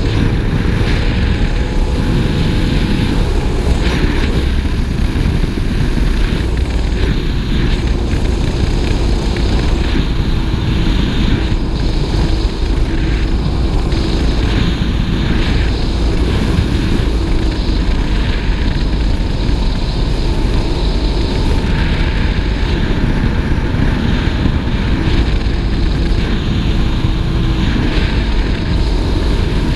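Speedboat engine running steadily under way, a constant low drone with a slight drift in pitch, mixed with wind and water rushing past.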